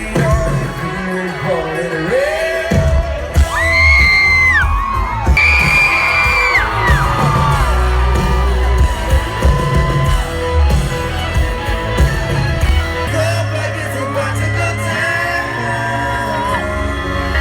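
Loud country-pop music with a singer, and people yelling and whooping along over it.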